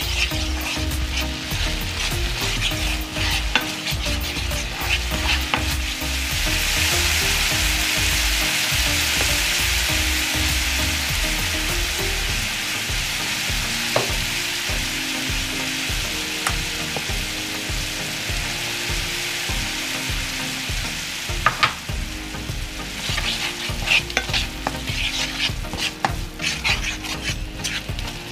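Minced garlic and onion sizzling in a nonstick frying pan as a cooking-wine and syrup sauce reduces, with a wooden spatula stirring and scraping across the pan. The sizzle swells to a louder, denser hiss for several seconds in the middle, and the clicks of stirring stand out near the start and near the end.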